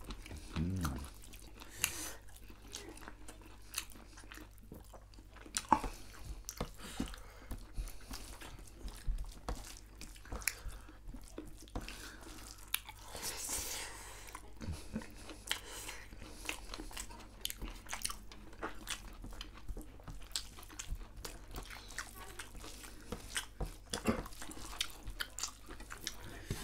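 Two people chewing and smacking while eating rice and deep-fried goat meat by hand, with many short, irregular mouth and finger clicks.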